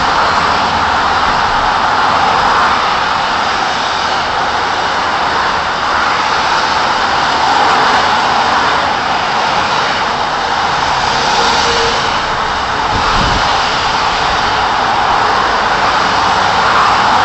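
Steady roar of motorway traffic on wet asphalt: tyre hiss and engine noise from many cars, vans and trucks, swelling and easing slightly as vehicles pass below.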